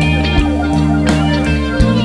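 Background music with a steady beat, plucked notes over held chords.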